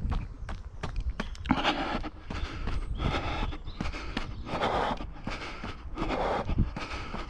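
A runner's footsteps on pavement with hard, hissing breaths about every second and a half, over a low rumble of the camera jostling and wind on the microphone.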